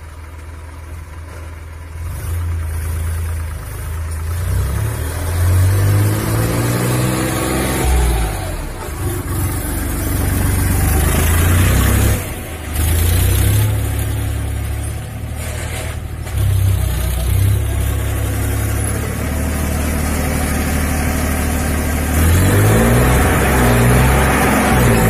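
Massey Ferguson 7250 tractor's three-cylinder diesel engine running under load while pulling a cultivator through soil, its revs rising and falling a couple of times.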